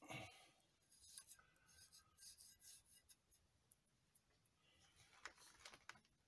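Faint scraping of a mortar trowel on brick and wet mortar in several short strokes, with a few light clicks of bricks being set.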